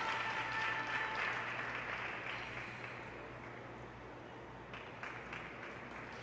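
Audience applauding, with the clapping dying down over the first few seconds and thinning to scattered claps.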